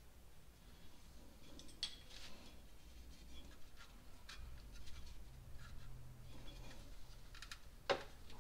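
Faint clicks and scrapes of a new rear main seal and its housing being handled and slid over the crankshaft, with one sharp click a little before the end.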